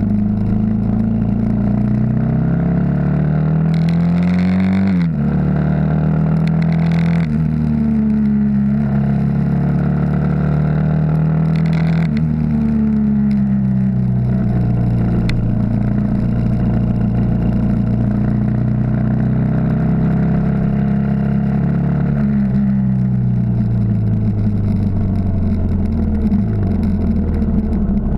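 Yamaha XT 600's single-cylinder four-stroke engine under way on the road. The revs climb and drop back at gear changes about five and seven seconds in, shift again near twelve seconds, then fall slowly through the rest.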